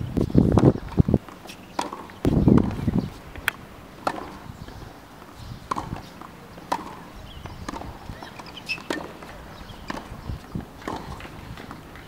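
Tennis ball being struck and bouncing on a hard court during a rally, with sharp pops coming irregularly about every half second to a second, and short sneaker squeaks. Two loud low rumbles in the first three seconds.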